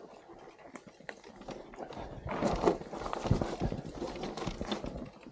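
Mountain bike clattering down a rough, rocky trail: a stream of knocks and rattles from tyres and frame hitting rocks, getting busier and louder about two seconds in.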